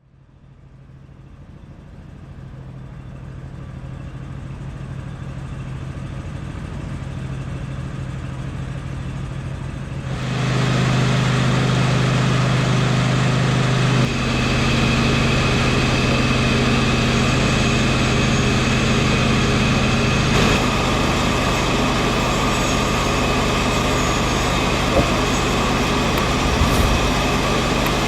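A machine motor running steadily with a constant hum. It fades in over the first several seconds, then steps up louder about ten seconds in and keeps running evenly.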